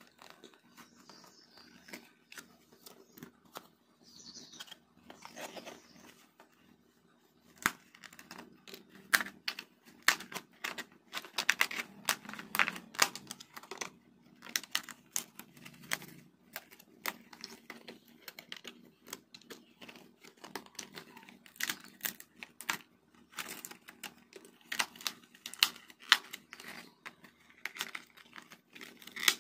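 Die-cut 3D puzzle sheets being handled and their pieces pressed out: a quick run of clicks, snaps and small tearing sounds as the board pieces pop free, sparse at first and dense from about eight seconds in.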